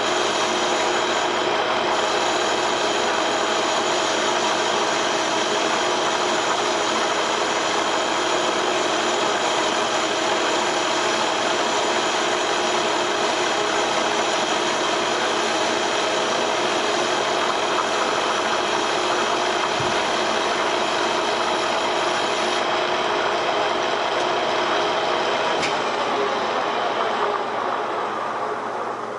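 Metal lathe turning a large flat belt pulley with a carbide tool: the headstock gearing whines steadily over the hiss of the cut. About 26 s in there is a click, and then the lathe spins down, its whine falling in pitch and fading.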